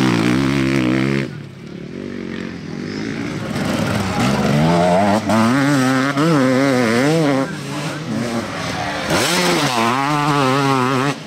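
Enduro motorcycles racing over a dirt cross-test track, engines revving up and down as the riders work the throttle through the turns. The sound switches abruptly from one bike to another twice.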